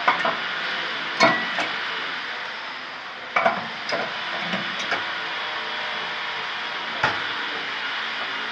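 Metal dye canisters being clamped into the rack of an infrared lab sample dyeing machine: a scattered series of sharp metal clicks and clanks over a steady hiss, with a last knock about seven seconds in.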